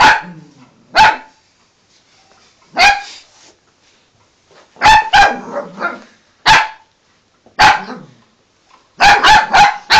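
Small cavapoo dog barking: single sharp barks every second or two, then a quick run of three barks near the end.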